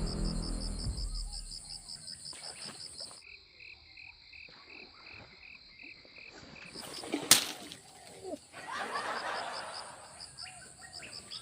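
Outdoor chorus of frogs and insects calling in rapid, evenly repeating high-pitched pulses, with a sharp click about seven seconds in and a brief rush of noise around nine seconds.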